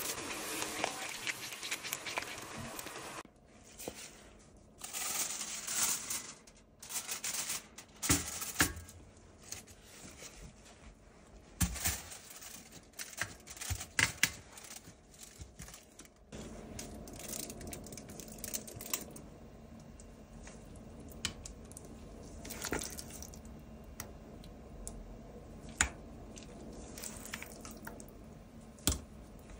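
Cherries simmering and hissing in a pan for the first few seconds. Then kitchen handling noises as gloved hands press soft dough into a foil-wrapped cake ring: crinkling and squishing, broken by sharp taps and clicks. A faint steady hum sets in about halfway.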